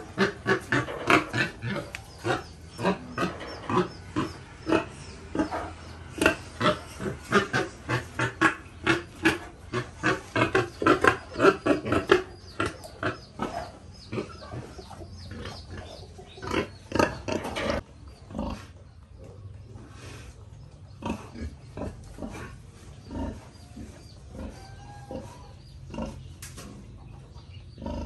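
Pigs grunting, a rapid run of short grunts several a second, thinning out after about two-thirds of the way through to occasional grunts.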